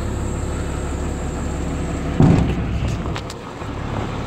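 Diesel truck engine running steadily while the hydraulic dump body is lowered. About two seconds in, the body comes down onto the frame with one heavy thump, and the low drone then eases off, followed by a few light clicks.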